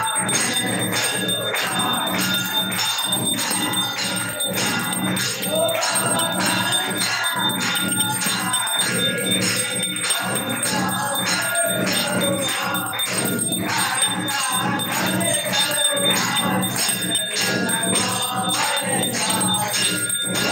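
Temple bells rung rapidly and without pause, about three strikes a second, over music.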